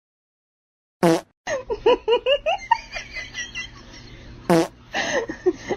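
A sudden short burst about a second in, followed by people laughing, with a second short burst near the end.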